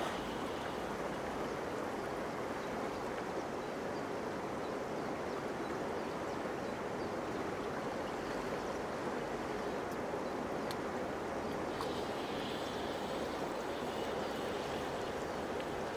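Steady rushing of a large, swift river's current flowing past a rocky bank.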